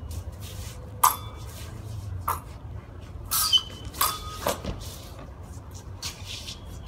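Steel practice swords clashing in a fencing bout: a run of sharp blade strikes between about one and five seconds in, some of them ringing briefly.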